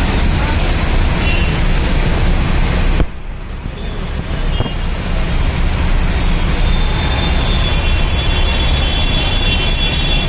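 Heavy rain and road traffic on a waterlogged city street, a dense steady noise that drops suddenly about three seconds in and builds back over the next few seconds.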